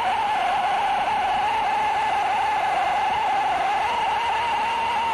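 Lynxx 40-volt cordless electric chainsaw with a 14-inch bar running under load, cutting up from the underside of a fallen limb: a steady, high motor-and-chain whine that wavers slightly in pitch as the chain bites into the wood.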